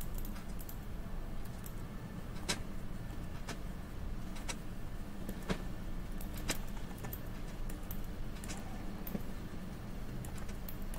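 Quiet room tone with a steady low hum, broken by faint, sharp clicks. Several of the clicks fall evenly about a second apart through the middle.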